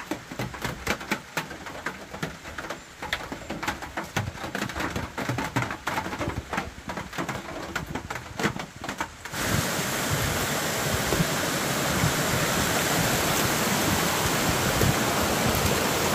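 Rain in the forest: scattered, irregular drips and patters for the first nine seconds or so, then an abrupt change to a steady, louder rushing hiss of rain.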